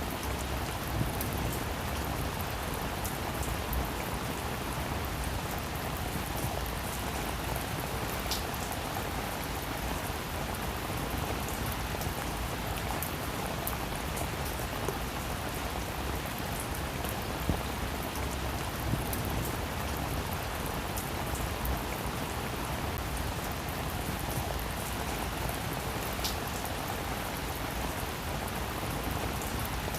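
Heavy rain falling steadily, a dense even patter of drops striking a surface, with occasional sharper single drop ticks.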